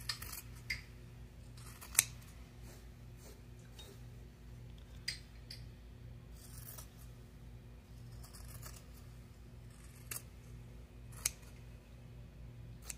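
Fabric scissors snipping along the sewn edges of a fabric piece, trimming the seam allowance: a handful of separate sharp snips with pauses between, the loudest about two seconds in.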